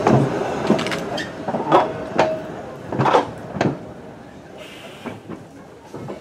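Vintage tram's steel wheels clattering over rail joints as it runs past and away, a string of sharp knocks over a rolling rumble that grow fainter.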